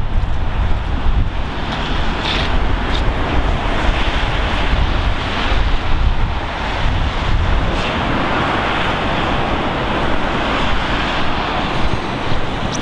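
Wind blowing hard across the microphone: a steady, loud rush with a heavy low rumble.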